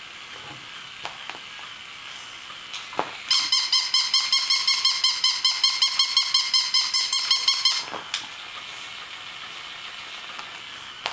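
Battery-operated toy dog's electronic bark: a fast, even run of high-pitched yaps, about five a second, starting about three seconds in and lasting about four seconds. A few light clicks come before and after it.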